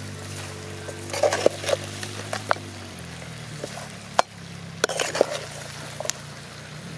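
Metal perforated spatula stirring chicken pieces in an aluminium kadai, with several sharp clanks and scrapes against the pan, the loudest about four seconds in. A low steady hum of held tones runs underneath.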